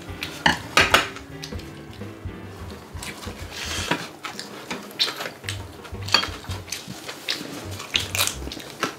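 Chopsticks clacking and scraping against a pan and bowls during a meal: a string of sharp clicks, the loudest about half a second and a second in.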